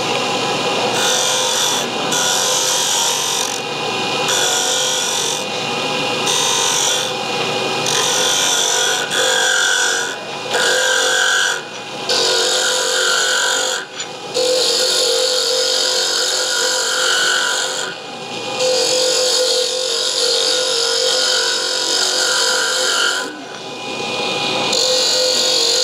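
Wood lathe running steadily with a pen blank on its mandrel, worked in repeated passes: a hissing cut or rub against the spinning blank comes and goes every second or two, with a few longer passes, as the blank is brought down close to flush with the bushings.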